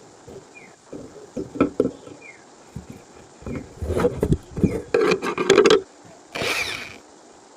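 Hand work on an object: scattered knocks, then a stretch of irregular scraping and rubbing in the middle, and a short hissing burst near the end.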